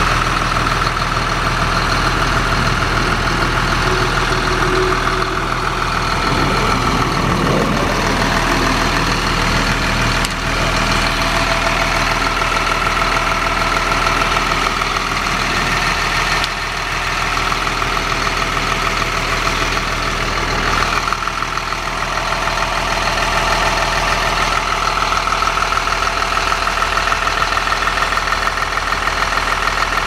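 Rear-mounted Caterpillar diesel engine of a 2007 Blue Bird All American school bus idling steadily.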